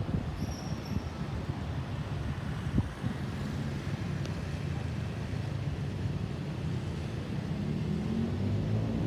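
Road traffic running by, a steady low rumble with a sharp knock about three seconds in. Near the end a vehicle's engine note climbs as it accelerates.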